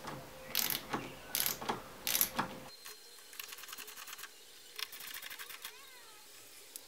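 Small ratchet driver clicking in short quick runs as the screws on the diesel fuel filter housing lid are tightened in a crisscross pattern, with a few separate sharper clicks of the tool in the first half.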